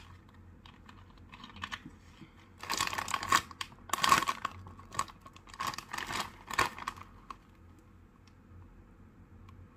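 A few faint clicks, then a Paqui Haunted Ghost Pepper chip bag being pulled open and handled, a run of loud crackling rustles over about four seconds, loudest near the middle, before it goes quiet.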